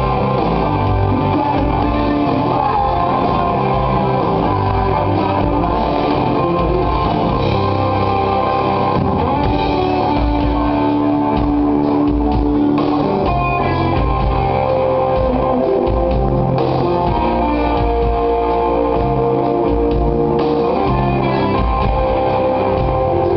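Rock band playing live: electric guitar, bass guitar, keyboards and drum kit.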